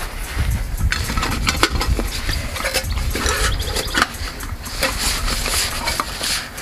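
Metal camp cookware being handled: irregular light clinks and clatter with rustling, over a low rumble.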